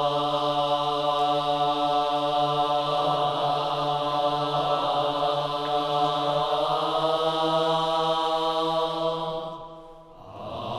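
Low chanted vocal drone: a voice or voices holding one long steady note for about ten seconds, fading away near the end before the next note begins.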